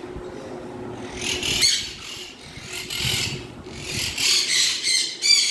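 Repeated short scraping and rubbing strokes from cleaning out bird cages and gathering up the mess. A steady machine hum fades out about a second and a half in.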